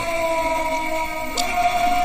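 Music with long, steady held notes.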